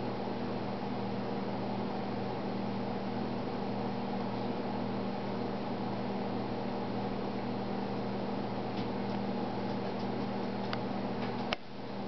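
Steady low hum with a hiss, like a running appliance or fan. A few faint clicks come late on, and one sharp click sounds just before the end.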